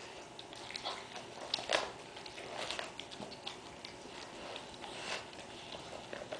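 Labrador chewing a raw lamb ribcage, ripping and pulling at the meat: irregular wet crunches and clicks of teeth on meat and rib bone.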